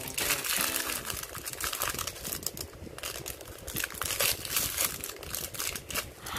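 Foil blind-bag wrapper crinkling as hands pull it apart and unwrap it, a dense run of sharp crackles.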